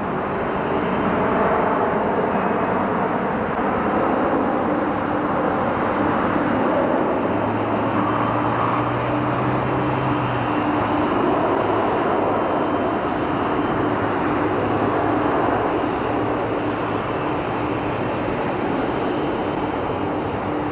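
Jet engines of a Boeing 787-9 Dreamliner at climb power just after takeoff, heard from the ground as a steady rumble of jet noise with a thin, constant high whine over it.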